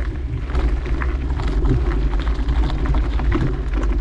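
Wind rumbling on the microphone of a camera riding along on a mountain bike, with frequent light clicks and rattles from the bike running over the trail.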